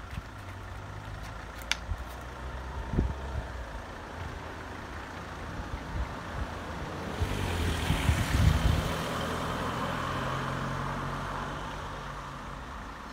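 A motor vehicle passing on the road: a low engine hum, with engine and tyre noise that swells about seven seconds in and fades away over the next few seconds.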